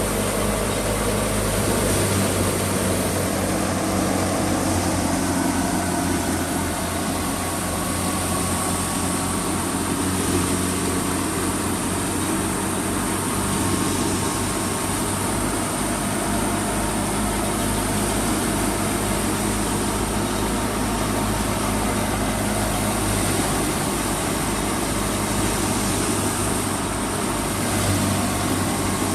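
Fiat 480 tractor's diesel engine running steadily while driving a wheat thresher, with a continuous even hum and the machine's dense mechanical noise throughout.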